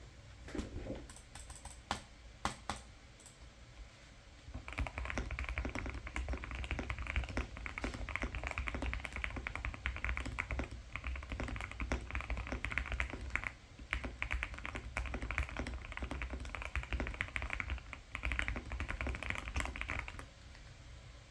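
Typing on a GMK67 mechanical keyboard with hand-lubed Gateron Milky Yellow Pro linear switches, a foam-filled case and Cherry-profile keycaps. A few separate keystrokes come first, then fast, continuous typing starts about five seconds in, pauses briefly near the middle and stops shortly before the end.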